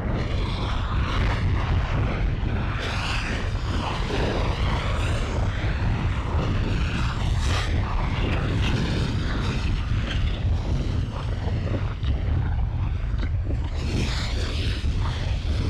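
Volcanic eruption with lava flow: a continuous deep rumble with irregular crackling and hissing over it that swells and fades.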